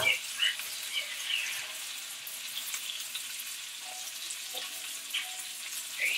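Steak searing in a hot skillet on a gas burner: a steady sizzle with scattered small pops.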